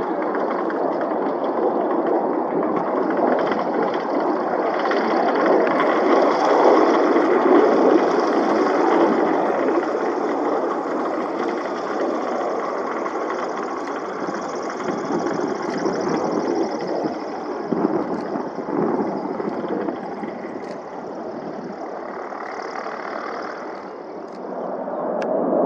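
Aircraft engine running steadily with a continuous roar, swelling louder and then easing off before building again near the end.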